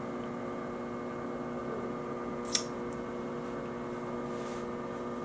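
A steady electrical hum made of several steady tones, with a single sharp click about two and a half seconds in.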